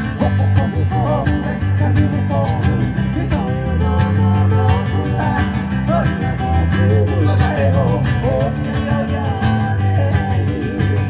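Music: a fast, evenly strummed guitar over steady bass notes, with a singing voice carrying the melody.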